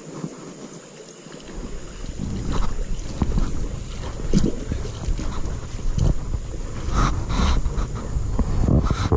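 Rumbling wind and handling noise on a body-worn camera's microphone, starting about a second and a half in, with a run of dull thumps and knocks as the angler moves along the sandy stream bank.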